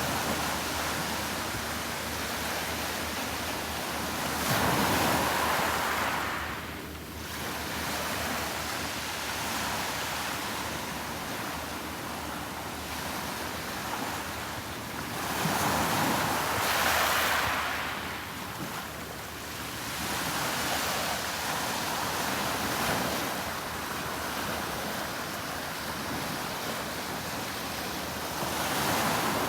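Sea waves breaking on the shore: a steady rush of surf that swells three times as waves break, then falls back.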